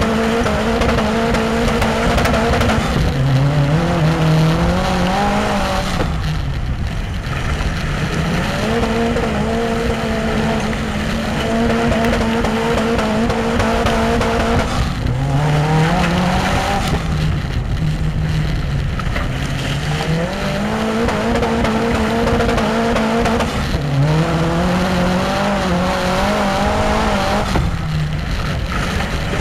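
In-car sound of a Saab turbo-engined autocross car racing on a dirt oval. The engine climbs in pitch under acceleration on each straight and falls away when lifting off for the turns, several times over. Tyre and track noise runs underneath.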